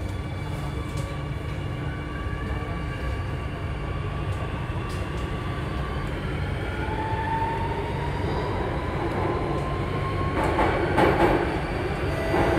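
Inside a C830C Alstom Metropolis metro train in motion: a steady low running rumble with a thin motor whine that rises in pitch through the second half. About ten seconds in comes a brief louder burst of wheel-on-rail noise.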